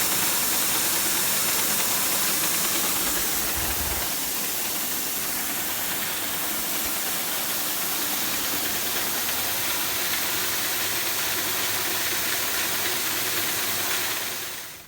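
Combine running while harvesting wheat: a steady, loud mix of engine and machinery noise that stops near the end.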